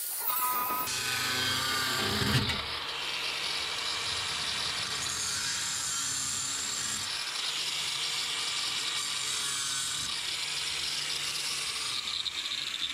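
Handheld angle grinder cutting through an aluminium floor panel, running steadily, its grinding hiss shifting in pitch every few seconds as the cut goes on.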